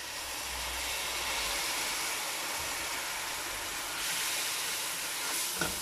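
A curry base of oil, onions, tomato and spices sizzling and hissing steadily in a stainless steel pot as a little water is poured into the hot oil.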